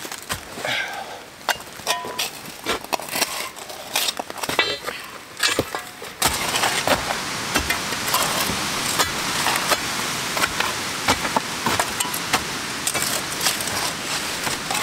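A steel shovel scraping and stabbing into rocky, leaf-strewn soil, with stones clinking and dirt dropping as it is backfilled around a concrete pier form. About six seconds in, a steady rushing noise joins the scrapes.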